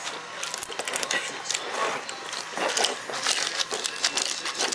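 A bloodhound crunching and chewing crushed ice from a stainless steel bowl: a dense, irregular run of crisp crunches.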